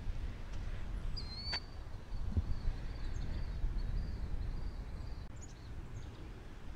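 Wind rumbling on the microphone, with a bird's high, thin call that sweeps up about a second in and then wavers on until about five seconds in.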